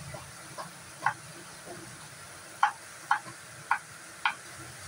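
Kitchen knife cutting potato on a wooden chopping board: about six sharp knocks of the blade hitting the board, the last four loud and about half a second apart.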